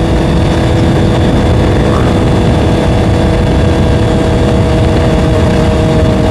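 Honda CBR650R's inline-four engine running at a steady, unchanging pitch while cruising, under heavy low wind rumble on the microphone.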